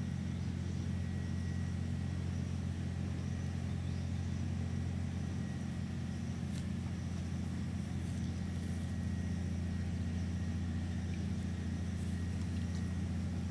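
Steady low mechanical drone of a motor running, holding one even pitch throughout, with a few faint short handling noises on top.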